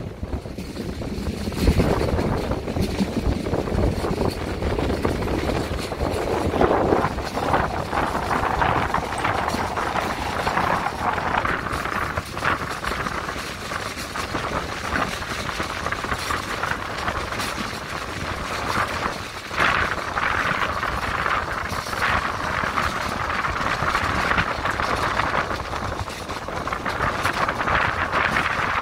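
Passenger train running along the track, heard from on board: a steady rumble and rattle of the carriage with scattered clicks from the wheels on the rails, turning hissier from about halfway.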